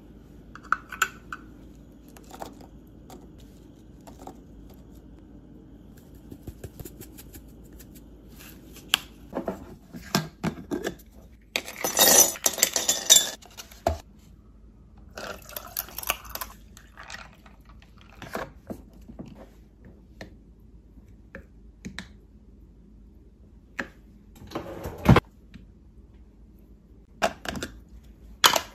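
Ice cubes clattering in a glass jar and iced coffee poured over them, among scattered clinks and knocks of glass and dishes on a countertop. The longest clatter comes near the middle, with sharp single knocks later on.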